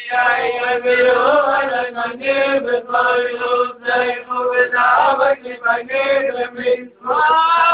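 A group of Hasidic men singing a melody together in unison, with a short break about seven seconds in before the singing picks up again.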